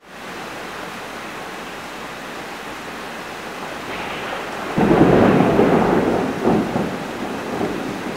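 Steady rain, with a roll of thunder breaking in suddenly about five seconds in and rumbling away over the next few seconds.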